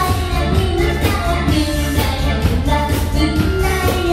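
A young girl singing a Korean pop song into a microphone over band accompaniment with a steady drum beat of about two beats a second.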